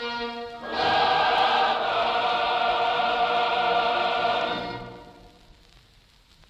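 Orchestral music: a short instrumental passage gives way, about a second in, to a choir singing a long held chord with the orchestra, which then fades out to near silence near the end.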